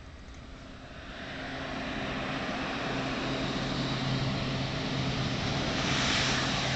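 Air Tractor AT-502 crop-dusting plane's turboprop engine and propeller approaching, growing steadily louder from about a second in, with a steady low propeller drone under the engine noise.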